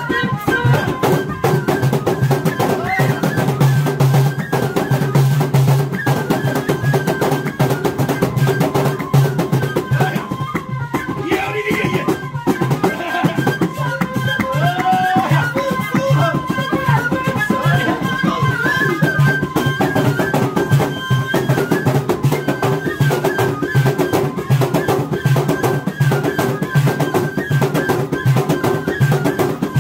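Two end-blown cane flutes playing a sustained, ornamented melody together over fast, steady drumming.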